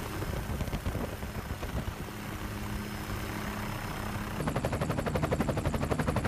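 Helicopter engine and rotor hum, steady at first. About four seconds in it turns into a louder, rapid, even blade chop.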